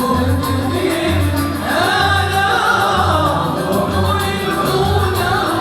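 Arabic wedding song: voices singing together as a chorus over a steady low beat that pulses about once a second.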